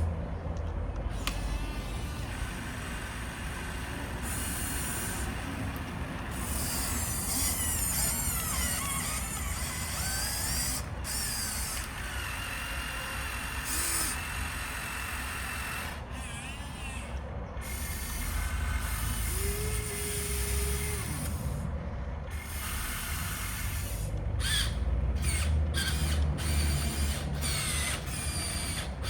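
Small electric motors and gearboxes of remote-control toy construction vehicles whining and whirring, their pitch gliding up and down as they move, across several short clips that cut off abruptly.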